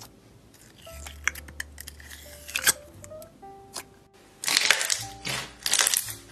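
Slime worked by hand over soft background music: scattered small sticky clicks and pops as clear slime is stretched and pressed. In the second half come louder, dense crunchy crackles as a bead-filled clear slime is squeezed in a fist.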